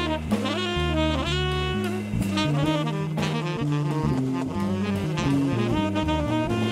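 Live jazz trio: a tenor saxophone plays a melodic line of moving notes over stepping bass notes and a drum kit with cymbals.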